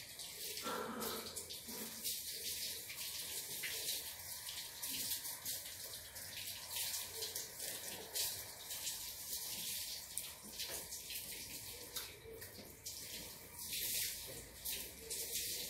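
Water running steadily: a continuous rushing hiss that rises and falls slightly.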